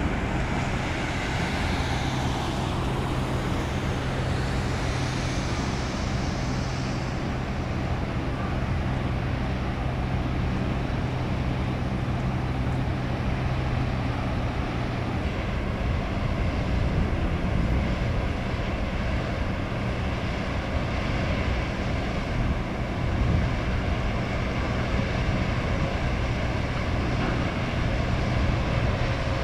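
Steady low engine drone and outdoor rumble, with a hum that shifts slightly about halfway through.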